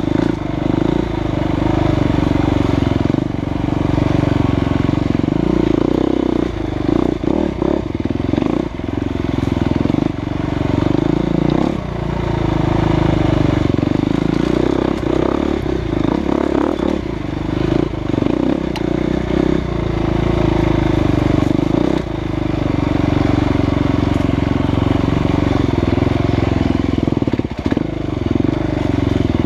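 Husqvarna FE350 single-cylinder four-stroke dirt bike engine running under load, the throttle opening and closing with short dips every few seconds. A few knocks from the bike on the trail around the middle.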